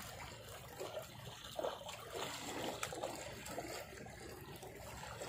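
Small waves of a calm sea lapping and trickling among shoreline rocks.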